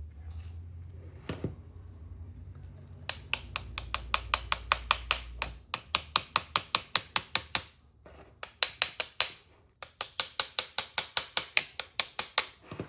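Rapid, evenly spaced mechanical clicking, about six clicks a second, in three runs with short pauses between them. A low hum runs under the first half.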